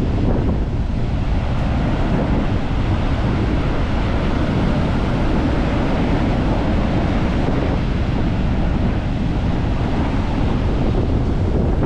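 Wind buffeting the microphone over the steady rush of big waves breaking on a beach.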